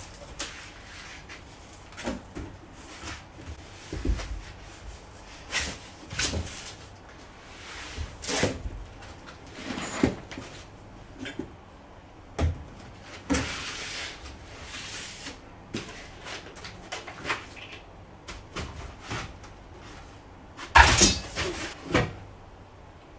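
Unpacking noises from a cardboard box and its foam packing: scattered rustles, scrapes and knocks, with a longer scraping rustle in the middle and the loudest clatter near the end as the printer's metal frame is lifted out.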